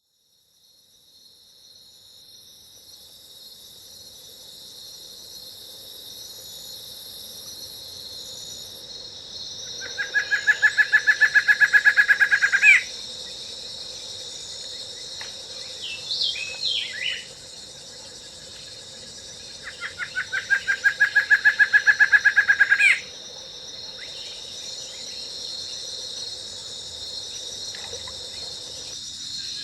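Jungle ambience effects loop fading in: a steady high insect drone, with two loud, rapidly pulsed animal calls of about three seconds each and a few short chirps between them.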